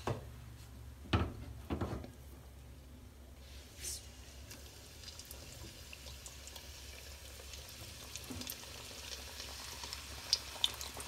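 Samosa frying in hot oil in a steel pan: a faint, steady sizzle. A couple of short knocks come about a second in and again near two seconds, and the crackling picks up near the end.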